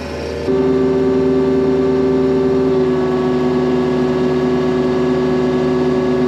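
Compact excavator's diesel engine running steadily close by, a loud, even hum with steady tones, stepping up in level about half a second in.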